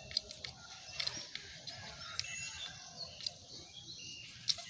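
Pigeons pecking grain from a feeder tray: scattered sharp beak taps and clicks, with a few faint short bird chirps now and then.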